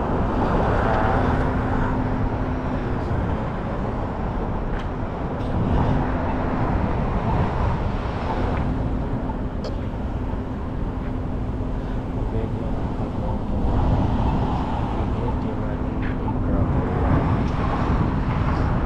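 Road traffic at a busy multi-lane intersection: cars driving past with a continuous tyre and engine rumble, and a low steady engine hum that comes and goes.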